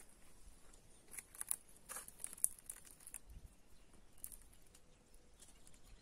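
Faint, irregular crackling and rustling of dry leaves and twigs underfoot, a scatter of short crackles that come thickest in the first half.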